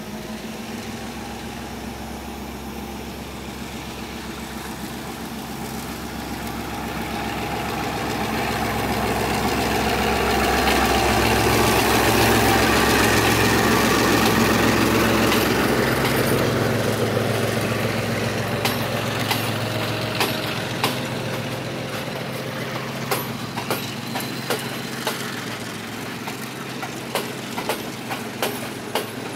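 Canadian-built Class M2 diesel locomotive pulling a passenger train away on departure. Its engine drone builds as it passes, at its loudest about halfway through, then eases. After it, the carriage wheels click over the rail joints in a rhythm that grows quicker toward the end.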